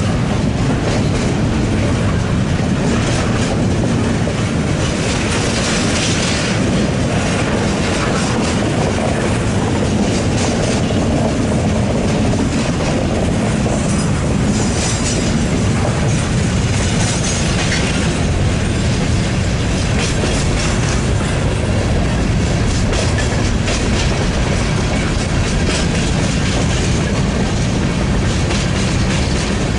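Freight train cars rolling steadily past, steel wheels clicking and clattering on the rails in a continuous stream, with a few brief high wheel squeals.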